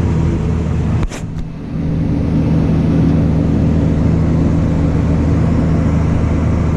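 Tractor engine running steadily, heard from inside the cab while pulling a grain cart. A sharp click comes about a second in, with a brief drop in level, and then the engine carries on a little louder.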